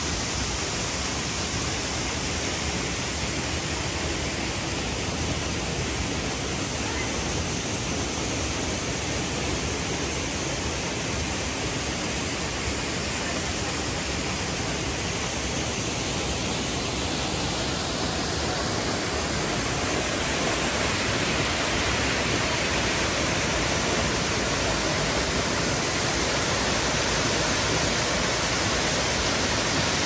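Waterfall rushing: a steady, even roar of falling water that grows a little louder about halfway through.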